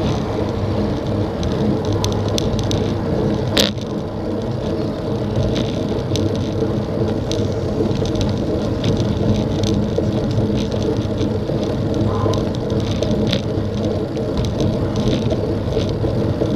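A road bicycle being pedalled along asphalt: a steady tyre-and-road rumble with small scattered rattles and ticks, and one sharp click about three and a half seconds in.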